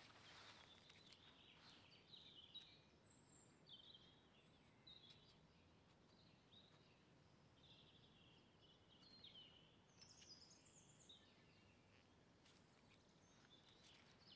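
Near silence with faint birdsong: scattered short chirps from small birds over a quiet outdoor hush.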